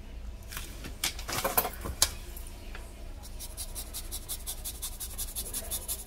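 Lime being grated on a long metal rasp grater: rhythmic dry scraping strokes, several a second, starting about three seconds in. Before that, a few sharp knocks as utensils are handled.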